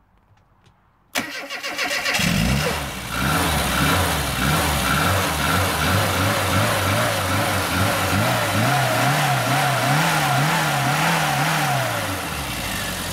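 Car engine cranked on the starter for about a second before it catches. It is then revved up and down in even, repeated swells, and drops back to a steady idle near the end.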